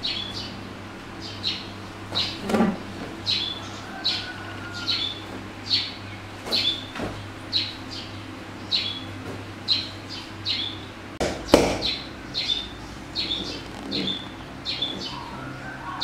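A bird chirping over and over, each call a short falling chirp, repeated about once or twice a second. A low steady hum lies underneath, and two thumps come through, the louder one about two-thirds of the way in.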